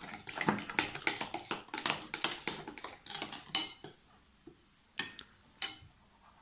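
Spoons clicking and scraping against bowls as slime is stirred: rapid, busy clinking for about four seconds, then a few separate clinks.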